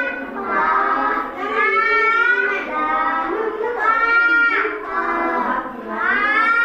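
A young child reading Hindi words aloud in a drawn-out, sing-song voice, one word about every second.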